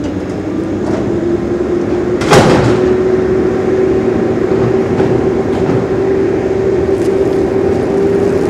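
An engine running, its pitch rising about a second in and then holding steady, with one sharp clunk about two seconds in.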